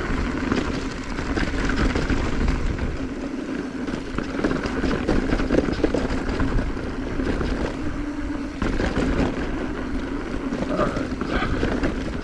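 Wind rushing over the microphone and tyres rumbling over dirt as a full-suspension mountain bike rides down a trail, with a steady rattling from the bike.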